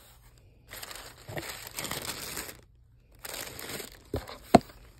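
Tissue paper crinkling as it is unfolded inside a cardboard box, in two long rustles, with one sharp knock near the end that is the loudest sound.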